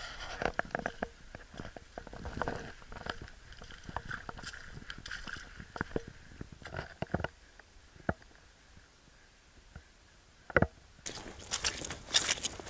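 Footsteps squelching and crackling in soft wet mud on a trail, irregular and close. A quieter lull comes a little after the middle, then the steps turn louder and denser near the end, where the ground is wetter.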